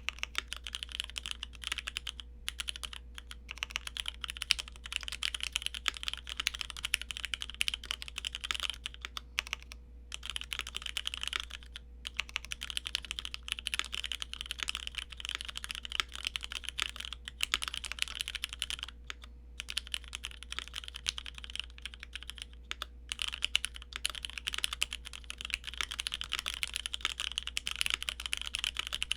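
Keychron Q1 mechanical keyboard with Cherry MX Black linear switches on its stock plate, fitted with an aftermarket tuning kit, being typed on in a fast, continuous stream of keystrokes with a few brief pauses.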